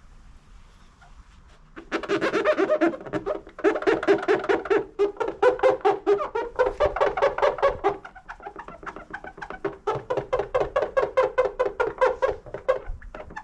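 Foam buffing pad squeaking against car paint as it is rubbed by hand through compound: a fast, steady run of pitched squeaks, about six a second, starting about two seconds in and pausing briefly twice.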